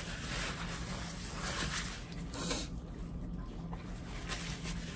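Soft chewing and mouth sounds of people eating potatoes and creamed corn, over a low steady hum.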